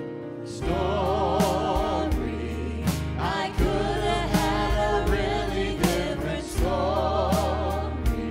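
Worship band and several singers performing a gospel song: voices with wide vibrato over drum kit, keyboard and a steady low bass. The full band comes in, louder, about half a second in, with regular drum hits.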